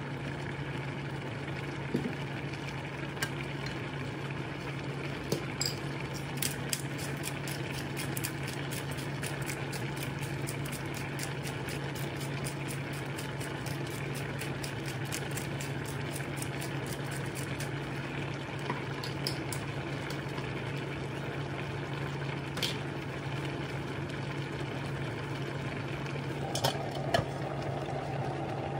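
Crabs and vegetables cooking in a pan on an induction hob, crackling and popping several times a second, over a steady low hum. Near the end a glass lid is set on the pan with a clink.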